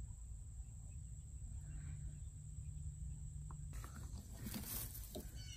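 Faint rustling of straw in a hen's nest box as the broody hen shifts on her eggs, starting about two-thirds of the way in, over a low rumble of wind or handling on the microphone.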